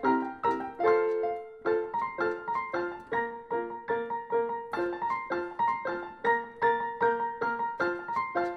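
Background piano music: a light tune of evenly spaced notes, about three a second.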